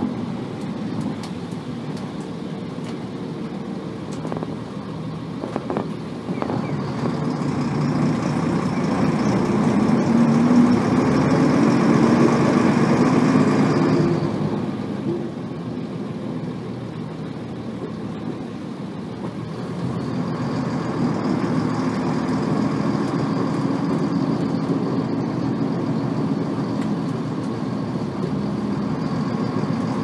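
Nissan Diesel RM bus with its FE6 inline-six diesel, heard from inside the cabin while driving. The engine pulls with revs climbing from about 6 s to 14 s, falls away abruptly, then builds again from about 20 s. A faint high whine rides over both pulls: the gear whine this high-revving bus is known for.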